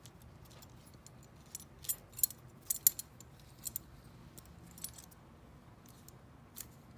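Small metal strap hardware, a steel hook and tensioning buckle, clinking and jingling together as the strap is worked through them: a quick cluster of light clicks about two to three seconds in, then a few single clicks.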